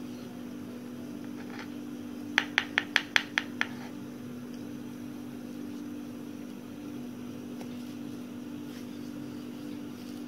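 Steady low machine hum, like a fan or appliance, with a quick run of about seven sharp clicks, roughly six a second, about two and a half seconds in.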